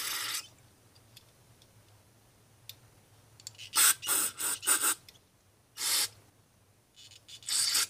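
Aerosol carburetor cleaner sprayed through a thin straw into a motorcycle carburetor's pilot and mixture-screw passages, in short hissing bursts: one at the start, a quick run of about four near the middle, and a few more near the end.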